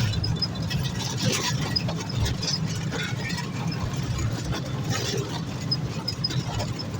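Vehicle travelling over a potholed, unpaved road: a steady low engine and road rumble with scattered knocks and rattles, and faint short high squeaks now and then.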